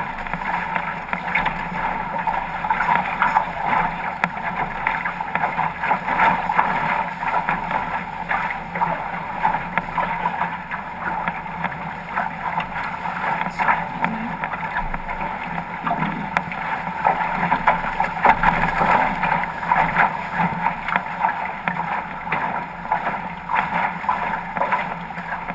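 Steady rush and splash of water streaming along the hull of a 505 sailing dinghy moving fast under sail.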